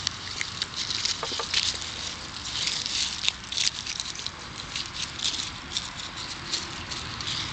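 Dry leaves and grass crackling and rustling irregularly as schnauzer puppies scuffle in them and mouth a dry leaf.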